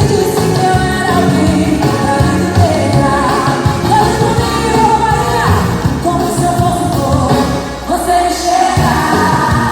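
Upbeat pop song with a singer's voice over a steady beat, played as workout music.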